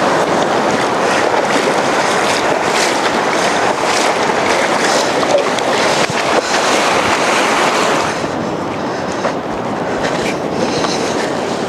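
Surf breaking and washing up a flat sandy beach: a steady, loud rushing noise.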